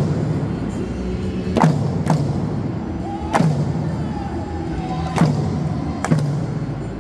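Eisa dancers striking small hand-held drums with sticks in unison, five sharp strikes at uneven intervals, each ringing briefly in the hall, over recorded Okinawan folk music.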